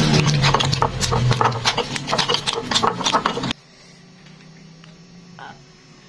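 Stone pestle grinding and scraping chilli paste against a stone mortar (cobek and ulekan): a rapid, uneven run of gritty clicks and scrapes that stops abruptly about three and a half seconds in, leaving only a faint low hum.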